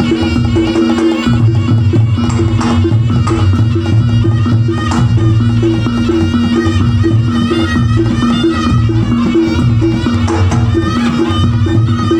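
Javanese gamelan ensemble playing a langgam, the kendang hand drums beating a busy pattern over steady ringing tones, with a wavering high melodic line above.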